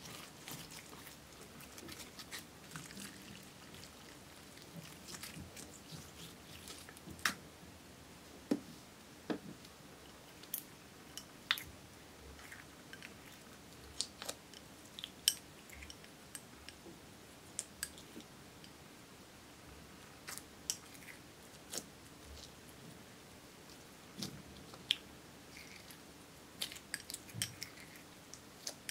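Hands squeezing, stretching and kneading clear slime, making irregular sticky pops and clicks. Later the slime is pressed into crumbled eyeshadow powder and glitter in a plastic tub, and the popping goes on.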